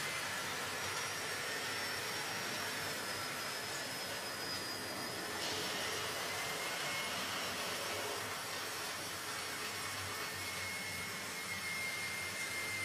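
Steady whirring hiss with faint high-pitched whines, from the small electric motors of model trains and model trucks running on a layout.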